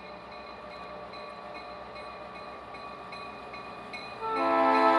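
A locomotive approaching along the track, heard faintly as a steady engine hum with a low, even throb. About four seconds in, loud music starts over it.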